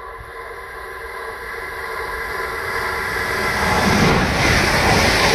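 ICE 3 (Class 403) high-speed train approaching at about 210 km/h and passing right at the platform. It grows steadily louder with a humming ring from the line, then turns into a loud rush of air and wheel noise as the nose goes by, about four seconds in.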